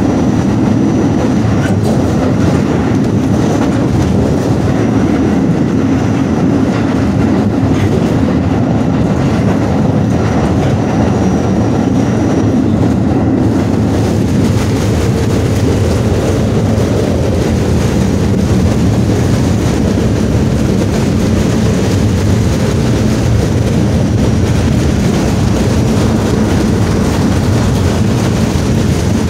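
Staten Island Railway R44 subway car running along the track, heard from inside the car: a steady rolling noise of wheels on rail. A faint, thin, high steady tone runs through the first half and stops about halfway.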